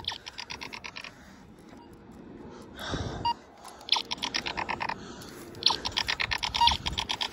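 Laser X toy laser-tag guns firing, giving runs of quick electronic shot pulses, about ten a second, in three bursts. A short rustle about three seconds in.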